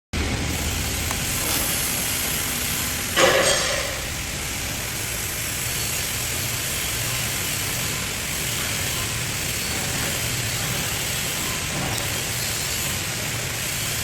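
Steady hissing crackle of an electric welding arc, with one louder burst about three seconds in.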